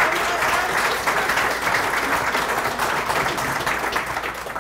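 Audience applauding: many hands clapping steadily, tapering off near the end.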